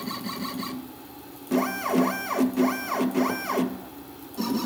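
Stepper motors of an Inventables CNC router jogging the gantry. A steady whine stops under a second in; then come four short moves, each a whine that rises in pitch and falls again; a steady whine starts again near the end.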